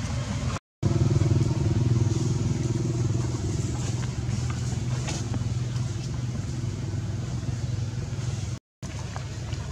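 A motor vehicle engine running steadily nearby, slowly growing fainter, cut by two brief dropouts in the sound, one near the start and one near the end.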